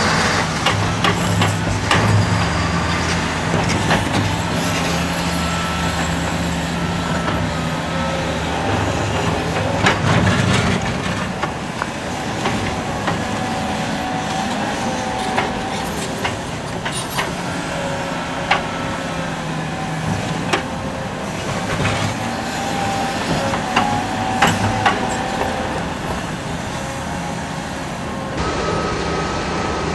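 Liebherr R974B crawler excavator digging: its diesel engine running, with a steady higher whine, and stones knocking against the steel bucket now and then.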